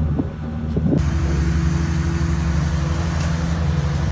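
Tour boat's engine running with a steady low drone, under a hiss of wind and water. It gets louder and fuller about a second in.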